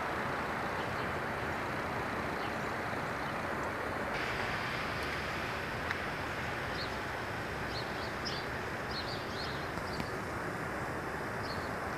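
Steady outdoor background noise, an even hiss and rumble, with a few faint high chirps from about halfway through.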